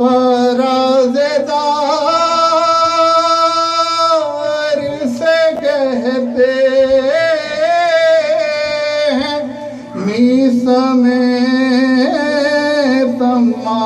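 A man singing a devotional Urdu praise poem (manqabat) without accompaniment, holding long, ornamented notes, with a brief pause about ten seconds in.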